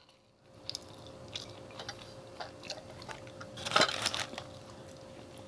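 Close-up eating sounds: chewing and small wet mouth clicks as fried chicken and French fries are eaten, with a louder bite about four seconds in.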